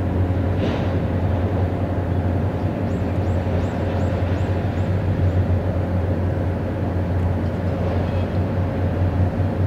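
Steady low drone of the floating crane's machinery holding a lifted ship's bridge deckhouse, with a constant mid-pitched hum over it. A row of about seven short, high, falling chirps comes from about three to five seconds in.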